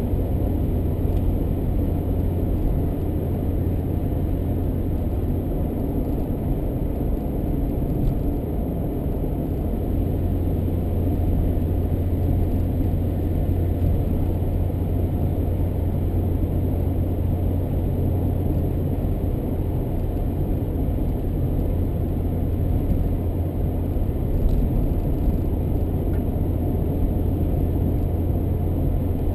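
Car driving along a road: a steady low rumble of engine and tyre noise that holds even throughout.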